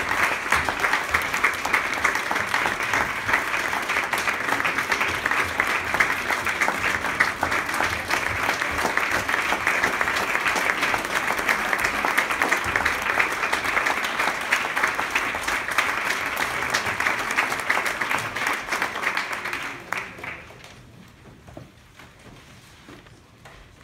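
Audience applause, a steady dense clapping that dies away near the end.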